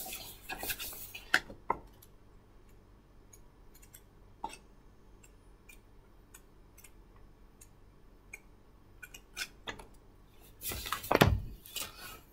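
Scattered light clicks and clinks of small hard objects being handled, sparse in the middle, busier just after the start, with a louder cluster and a dull thump near the end.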